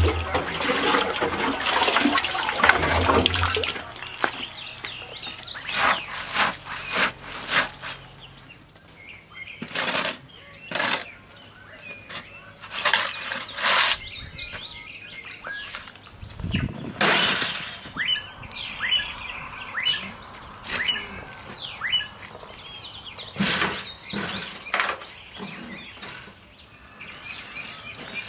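Water splashing in a metal barrel for the first few seconds. Then comes a run of separate scrapes and knocks as a shovel works a gravel and cement mix into plastic buckets, with small birds chirping now and then.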